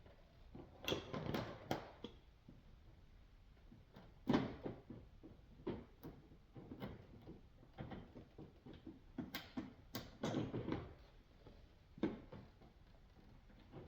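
Irregular clicks, knocks and rustles of hands and tools working at a coolant hose connection in the engine bay, with a few louder knocks about a second in, around four seconds in and around ten seconds in.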